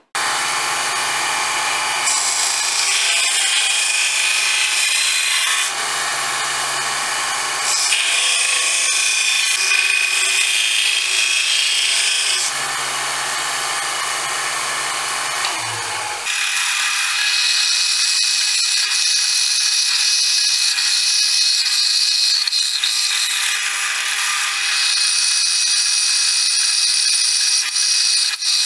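A small power saw cutting a knife blank out of O1 tool steel, the cutting noise coming in loud stretches a few seconds long over the motor's hum. About halfway through it changes to a drill press boring holes through the steel blank, a steady whine with loud stretches while the bit is in the cut.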